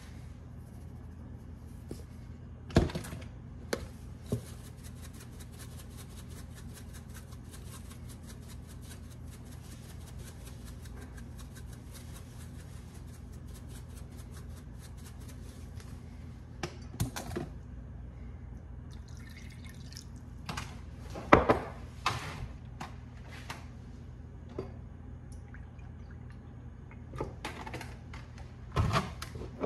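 Steady low hum with scattered clicks and knocks of spice containers being handled, the loudest cluster about two-thirds of the way through.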